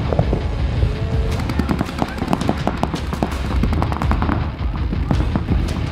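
Paintball markers firing in rapid strings, many quick pops overlapping, over background music.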